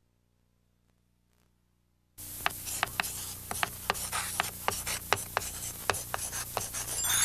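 Chalk writing on a chalkboard: a scratchy scraping broken by sharp chalk taps about three times a second, starting suddenly about two seconds in. A bright shimmering chime begins near the end.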